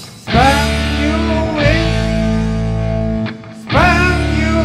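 Blues-rock band playing an instrumental passage: a lead line of bending notes over a steady bass. The band breaks off briefly about three seconds in, then comes back in.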